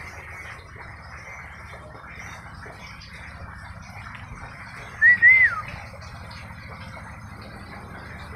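One short, loud whistled call about five seconds in: two quick rising-and-falling notes, then a downward glide. A steady background hiss runs underneath.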